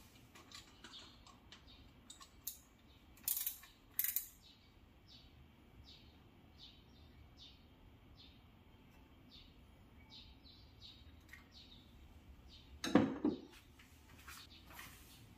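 A few sharp knocks and clinks, the loudest about 13 seconds in, with a small bird chirping repeatedly in the background.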